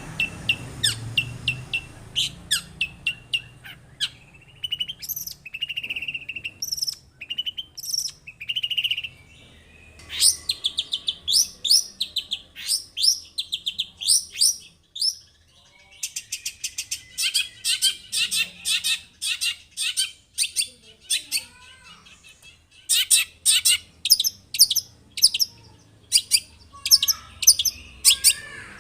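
Long-tailed shrike (cendet) singing: fast runs of short, sharp, high notes and trills, in bursts broken by brief pauses.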